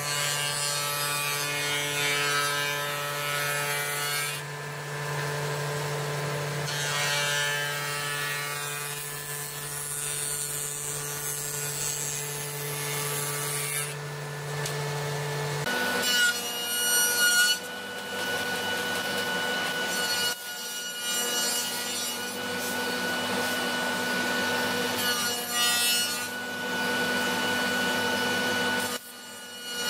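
Woodworking machines running steadily. For the first half a table saw runs as strips of wood are fed through it; about halfway in the sound switches to a wood planer running, with louder surges as boards pass through it.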